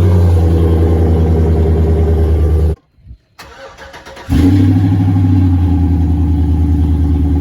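Pickup truck's exhaust, fitted with 8-inch tips, running at a steady, loud, deep idle rumble. It drops out about three seconds in and returns about a second and a half later.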